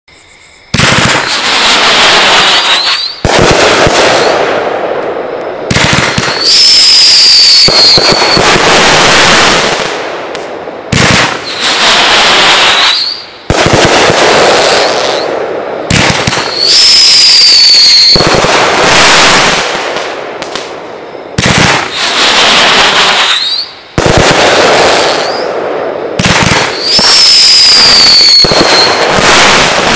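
Brothers Pyrotechnics Shotgun Wedding 500-gram cake firing shot after shot: sharp launch reports, whistling tails with falling whistles, and dense crackling breaks, over and over.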